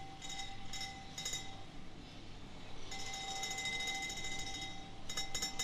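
HO-scale model hopper wagons rolling round a curve. The wheels give a steady high squeal, which drops away for about a second midway, with scattered clicks as they cross the rail joints.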